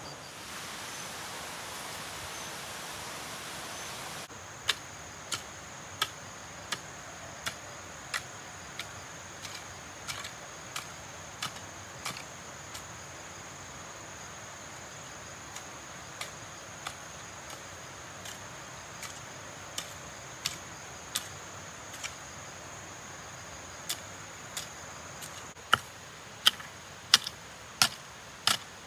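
Repeated sharp knocks of a tool striking, starting about four seconds in at roughly one every two-thirds of a second, thinning out in the middle and louder near the end, over a faint steady high hum.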